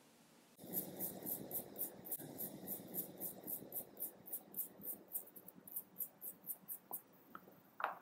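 A small brush scrubbed rapidly back and forth over the end of a stripped coaxial cable, about four scratchy strokes a second, folding the braid back over the sheath. The brushing stops about a second before the end, followed by a couple of faint clicks.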